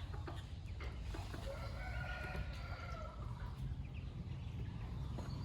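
A rooster crowing once, faint, for about a second and a half starting near two seconds in, over a steady low rumble.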